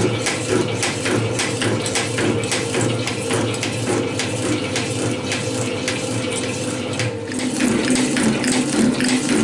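Milling machine running steadily, with frequent light metallic clicks and rattles. About seven seconds in it gives way to a metal shaper running.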